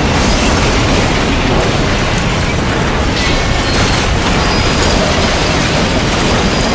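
Toy trains running along the track close to the microphone: a loud, steady rumbling rattle with a few faint clicks.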